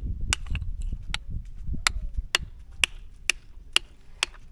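Claw hammer pounding a spider conch shell resting on rock, sharp blows about two a second on the same spot to crack the shell open.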